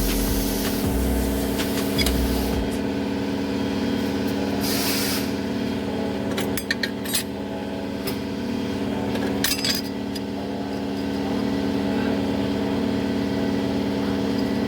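Metal clinks of clutch steels and friction plates being stacked into a 700R4 transmission's low-reverse clutch pack, over a steady machine hum. There is a short burst of hiss about five seconds in.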